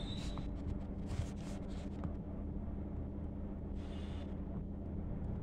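Ballpoint pen writing on a paper notepad: a few short spells of faint scratching and light ticks, over a steady low background hum.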